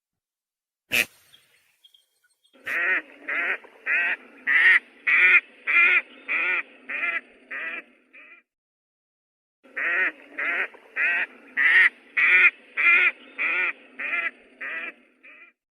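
A duck quacking in two long runs of rapid, evenly spaced quacks, about two a second. Each run grows louder and then fades, with a short pause between them. A sharp click comes about a second in.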